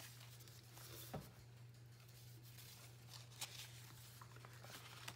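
Near silence: faint handling of the paper pages of a handmade journal being leafed through, with a couple of soft taps, over a steady low hum.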